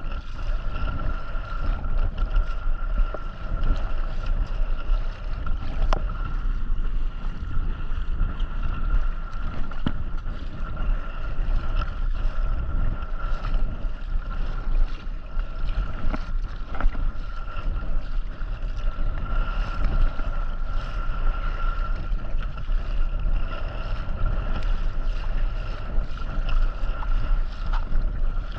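Wind buffeting the microphone as a fluctuating low rumble, with a steady high-pitched whine over it and occasional faint clicks.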